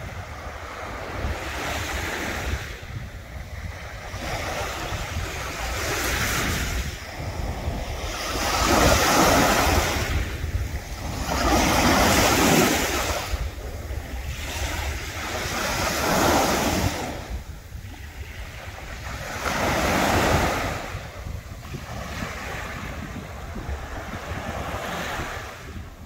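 Baltic Sea waves breaking on the beach, the surf rising and falling every three to four seconds, loudest near the middle. Wind buffets the microphone with a steady low rumble underneath.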